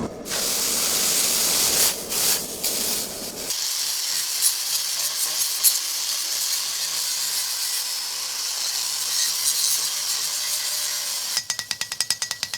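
Red-hot iron hissing and sizzling steadily as it is quenched in water. Near the end comes a rapid run of light metal-on-metal taps with a ringing tone.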